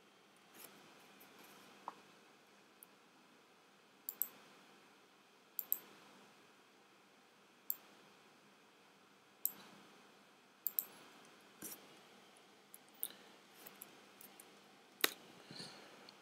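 Faint, scattered clicks of a computer mouse and keyboard, spaced a second or two apart, some in quick pairs like double clicks.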